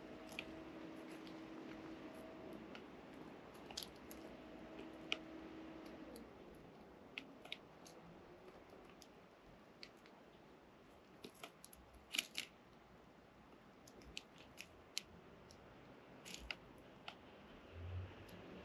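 Small birds pecking or tapping on a hard surface: scattered sharp clicks at irregular intervals, with a quick cluster about twelve seconds in, over a faint steady hum that stops about six seconds in.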